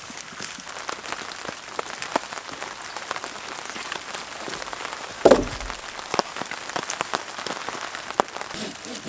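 Rain falling, with many separate drops ticking sharply on a nearby surface. A single louder thump a little past halfway.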